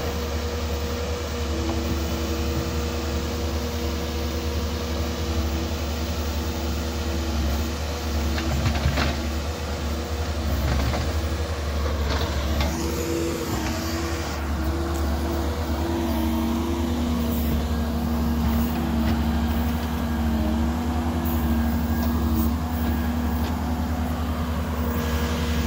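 Cat 308 mini excavator's diesel engine running steadily, with a hum whose pitch shifts several times as the hydraulics work the arm and bucket.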